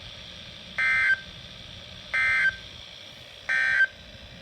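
Three short bursts of EAS digital data tones from a NOAA Weather Radio broadcast, each about a third of a second long and roughly 1.4 seconds apart: the end-of-message code that closes the severe thunderstorm warning.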